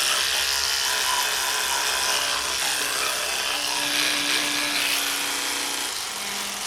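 Electric toothbrush running while brushing teeth: a steady buzzing hum with the scrubbing of the bristles over it. The hum drops lower in pitch near the end.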